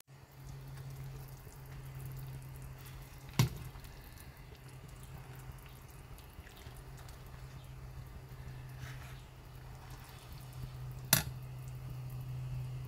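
Samgyetang broth simmering in an earthenware pot, with light liquid bubbling over a steady low hum. A metal ladle knocks sharply against the pot twice, about three and eleven seconds in.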